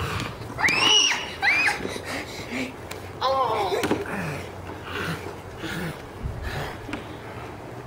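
Short high-pitched squeals and laughter: two quick squeals about a second in, then a voice sliding down in pitch, with lighter laughing sounds after.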